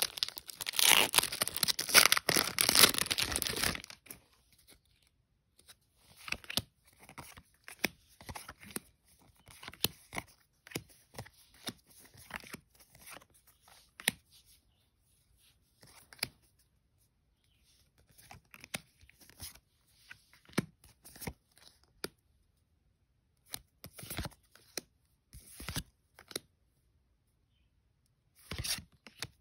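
Magic: The Gathering booster pack wrapper being torn open and crinkled for about four seconds, then a long run of soft, separate clicks and flicks as the trading cards are handled and flipped through one at a time.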